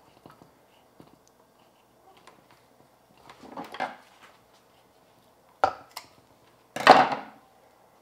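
Kitchen handling noise as bamboo skewers are worked through a whole duck in a stainless-steel bowl. There are faint clicks and rustles, then two sharp knocks and a louder clatter near the end.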